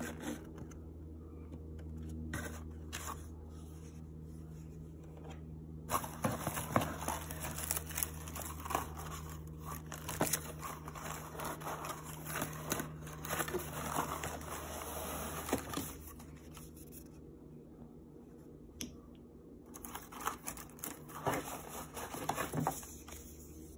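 Honeycomb kraft-paper packing wrap crinkling and rustling as a hand digs through it inside a cardboard shipping box, with small knocks of bottles and tubes. The rustling is busiest through the middle and picks up again near the end.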